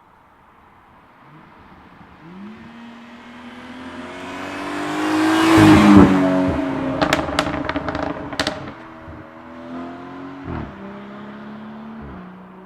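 BMW 440i's turbocharged inline-six with the M Performance Power and Sound Kit exhaust, driving past under acceleration: the revs climb and peak as it passes about six seconds in, and the pitch drops. It then lifts off and the exhaust crackles with about half a dozen sharp pops on the overrun before settling to a steadier engine note.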